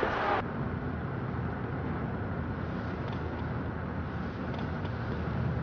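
Steady low rumble of a running motor vehicle, engine and road noise. A louder, wider noise cuts off abruptly about half a second in.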